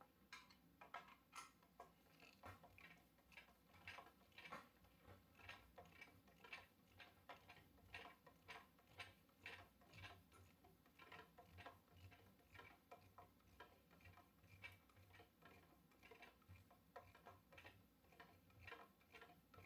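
Faint, irregular clicking, a few clicks a second, of a hand screwdriver driving a screw into the plastic mounting bracket of a Sainlogic SA6 Plus weather station sensor array.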